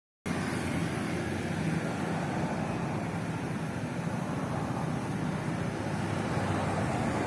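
Steady street traffic noise from passing motorbikes and cars, cutting in abruptly just after the start.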